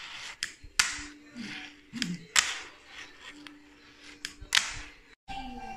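Fingerboard tricks: a series of sharp, separate clacks as the board's tail snaps against the ledge and the board lands back on it, with the three loudest spread out about a second and a half apart.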